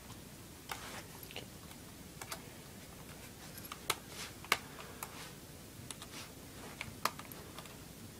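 Small screwdriver working the screws out of an Acer laptop's plastic bottom cover: about a dozen light, sharp clicks at irregular intervals, with a quiet room hiss beneath.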